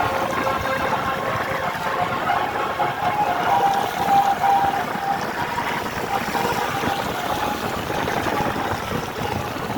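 Tour bus on the move: steady engine and road noise, with a few faint held tones above it.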